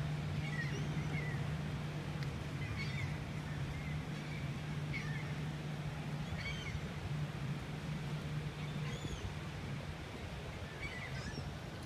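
Seabirds calling in short, scattered cries about once a second over a steady low drone of ship engines.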